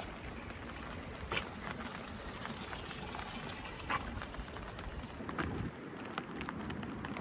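Steady rain falling, with a few sharp taps, about three, against the hiss.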